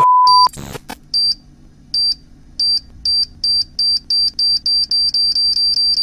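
A brief steady 1 kHz test-tone beep with TV colour bars, then a sound effect of high electronic beeps that speed up from about one a second to about five a second, like a time-bomb countdown.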